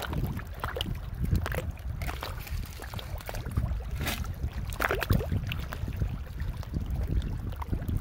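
Shallow seawater sloshing and splashing around the hands, with scattered sharp clicks and knocks of oyster shells being handled and pried loose.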